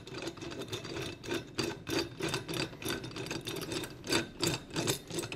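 The metal clamp bar of a Flexco MSRT belt-fastener applicator being loosened by hand at both ends, making a rhythmic rubbing and clicking of about three strokes a second.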